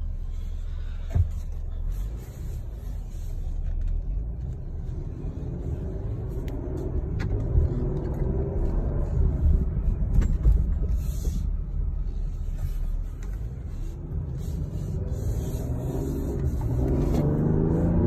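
2020 Ford Explorer ST's twin-turbo V6 running as the SUV pulls away, with steady low road rumble inside the cabin and a sharp click about a second in. Near the end the engine note rises as it accelerates.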